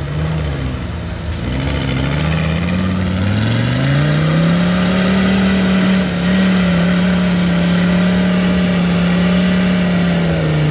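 Off-road rock-crawling rig's engine revving up over a few seconds, held at high revs, then dropping back near the end.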